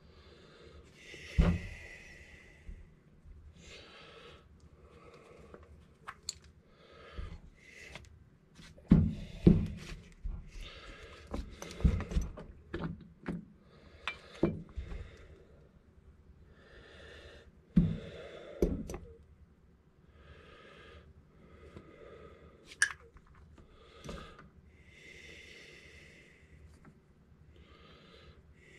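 Hand tools and parts of a Poulan 245A chainsaw being worked during disassembly: irregular clicks, knocks and clunks, with a handful of louder knocks and soft scraping between.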